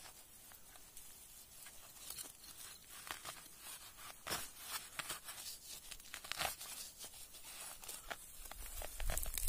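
Plant leaves and stalks being torn and cut by hand with a small knife: irregular tearing, snapping and rustling strokes. A low rumble comes in near the end.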